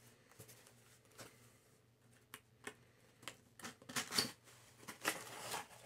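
Cardboard and plastic packaging of a Funko Pop box being handled and opened: scattered light clicks and short rustles, busier in the second half.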